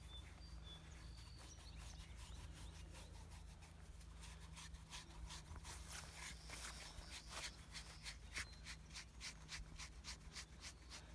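Faint rubbing and rustling as a hand strokes a donkey's furry ear, with many quick, irregular crackles that grow denser from about four seconds in.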